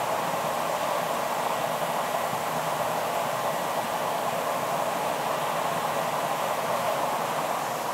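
Gas-fired glory hole (glassblowing reheating furnace) running with a steady, even rush of burner flame and blower air while a piece is reheated in its opening.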